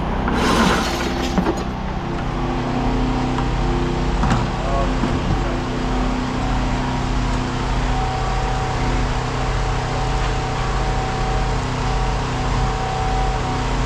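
An engine running steadily at idle, with a brief clatter about half a second in and a single knock around four seconds in.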